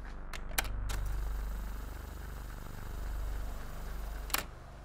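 Fast-forward sound effect: a low whirring drone that swells and fades, with a few sharp clicks near the start and one near the end.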